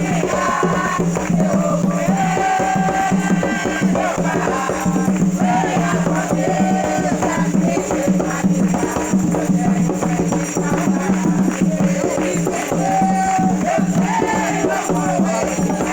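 Voices singing an Umbanda chant (ponto) for Ogum, with shaken rattles and tambourine-like hand percussion keeping a dense, steady beat.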